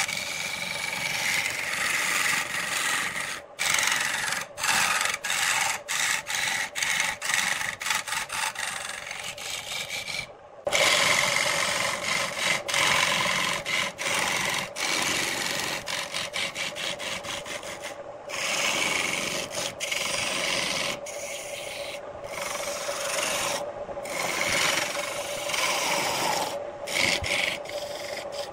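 Turning tool cutting into a spinning wooden workpiece on a wood lathe: a continuous rasping scrape of steel on wood, broken again and again by short gaps as the tool eases off, with a longer break about ten seconds in.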